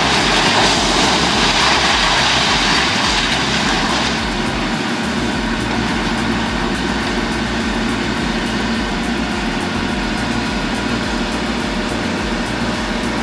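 A heavy machine's engine running. A loud, rough noise lies over it for the first four seconds, then the sound settles into a steadier engine drone.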